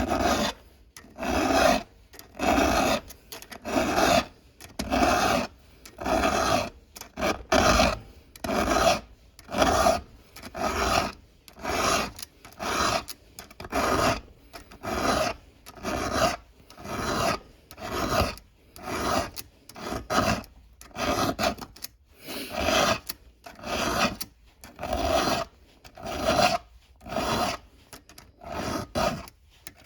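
Hand file rasping on a chainsaw chain cutter tooth in steady, even strokes, about one a second. The tooth is dull and squared off and is being filed back to a sharp point.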